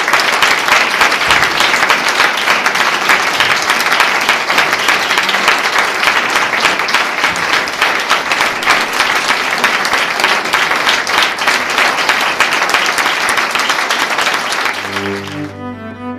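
Audience applauding steadily. Near the end it dies away and music with low string notes begins.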